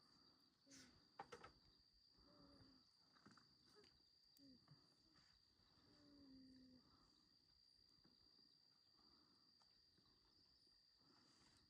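Faint night ambience of crickets making a steady high-pitched drone. A few short, low calls come through in the first half, and a couple of sharp clicks land about a second in.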